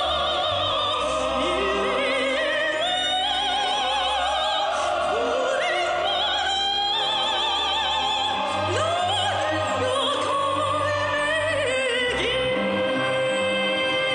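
A song playing: a singer's voice with strong vibrato and scooping slides up into notes, over instrumental accompaniment.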